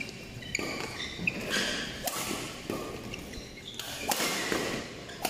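Badminton rally: sharp racket-on-shuttlecock hits about a second or more apart, with short high squeaks of shoes on the court mat between them.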